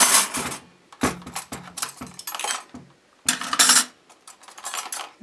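Metal silverware clattering and clinking as spoons are taken from a dishwasher's cutlery basket and tossed into their places, in several bursts of clinks with short pauses between.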